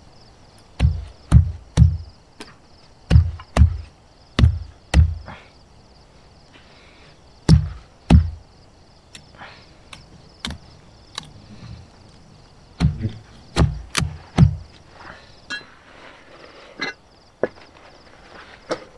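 Knife chopping into a bamboo stick to split and shape it into skewers: sharp chops in quick clusters of two or three, with fainter cuts and ticks between.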